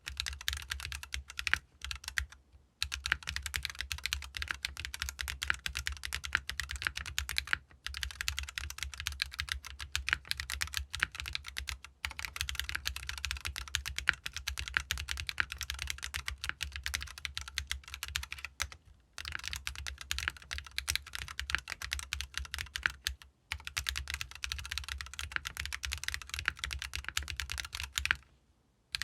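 Continuous typing on a GEON F1-8X mechanical keyboard with Tecsee RAW switches, an aluminium plate, an O-ring mount, no foam and ABS double-shot keycaps. It gives a dense run of key clacks, broken by short pauses every few seconds.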